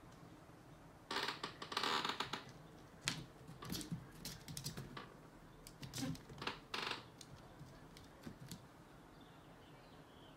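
A cat's claws clicking and scrabbling on a hardwood floor as it chases and pounces, in irregular flurries starting about a second in, the loudest flurry early, then dying away after about seven seconds.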